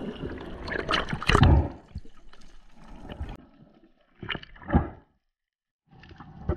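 Splashing and a rush of bubbles as a diver drops into the sea, then muffled gurgling and water noise heard underwater, with two dull knocks past the middle. The sound cuts out for about a second near the end before the underwater noise returns.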